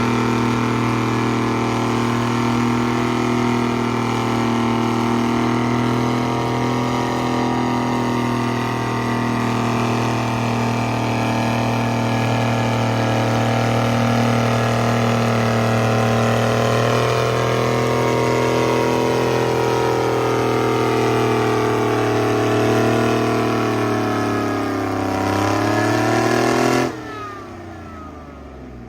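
Antique farm tractor engine running steadily at a hard, even pitch, its speed rising over the last few seconds before the sound cuts off abruptly near the end.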